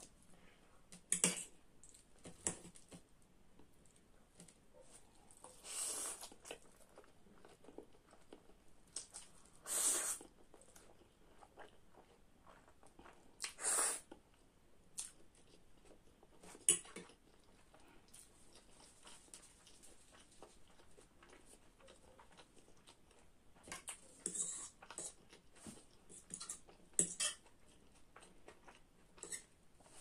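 Close-up eating sounds: chewing mouthfuls of spicy ramen noodles, with several longer noisy bursts and a few sharp clinks of a metal fork against the plate.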